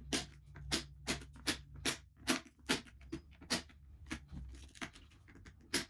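Power drill running at low speed, drilling out the plastic rivet posts on the back of a truck emblem, with sharp irregular clicks and snaps of plastic about two or three a second. The drill's low hum stops about four and a half seconds in.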